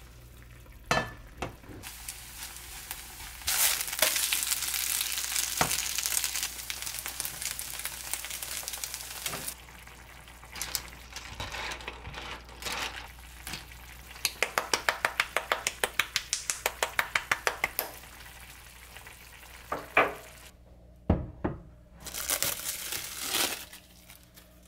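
Food sizzling in a frying pan, with scattered knocks of a cooking utensil. Midway comes a quick, even run of strokes, about five a second for some four seconds.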